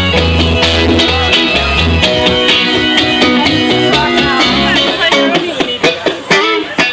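Amplified live band playing a pop-rock song at a sound check, with guitars, bass and drums; the deep bass drops out about five seconds in.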